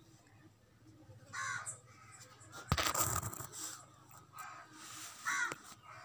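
Crows cawing several times. A brief, loud rustling thump about three seconds in.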